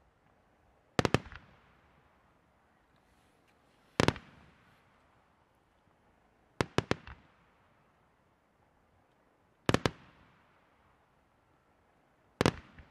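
Aerial firework shells bursting in volleys: five clusters of two or three sharp bangs, about every three seconds, each fading out in a rolling echo.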